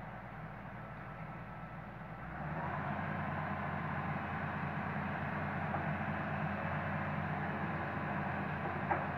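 Hitachi Zaxis 210LC excavator's diesel engine running steadily, then revving up to a louder working pitch about two seconds in as the machine takes load. A short knock near the end.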